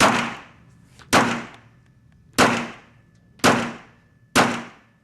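Handgun shots fired one at a time, five in all, roughly a second apart, each with a short echoing tail.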